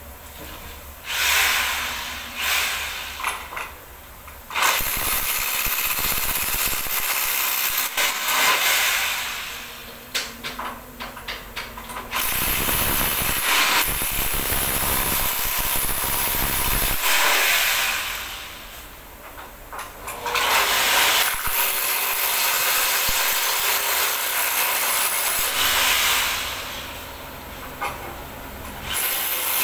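Handheld power drill running in repeated runs of a few seconds each, stopping and starting, as holes are drilled at the bottom track of an aluminium sliding-door frame.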